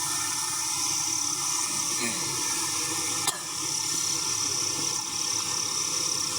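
Steady, high-pitched night-time insect chorus in forest, with one sharp click about three seconds in.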